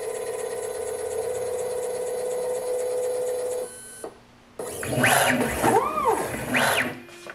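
CNC machine's stepper-driven axes during an automatic probing cycle: a steady whine from a slow, constant-speed move that stops about three and a half seconds in. After a click and a short pause come a few quicker moves whose whine rises and falls in pitch as the axes speed up and slow down.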